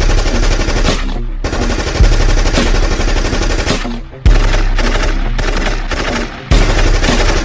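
Recorded machine-gun sound effect played through the stage speakers: rapid automatic fire in several stretches, each starting again after a brief pause with a heavy hit.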